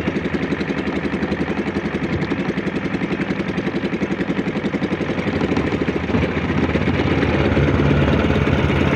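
Engine of a small outrigger fishing boat running steadily under way, a fast even chugging, a little louder in the last few seconds.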